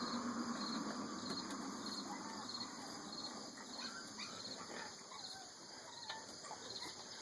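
Crickets chirping in an even rhythm, about two chirps a second, with faint, high, wavering whimpers from a young Boston terrier puppy crying.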